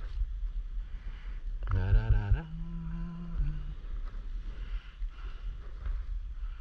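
Steady low wind rumble buffeting the microphone. About two seconds in, a man hums a wavering, then held note for about two seconds.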